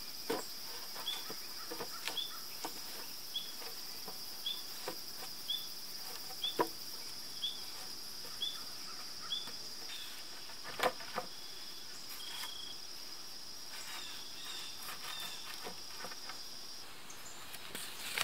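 Wooden poles knocking and clacking as they are laid side by side into a raised log bed. Underneath is a steady high insect drone, which stops near the end, and a short high chirp that repeats about once a second.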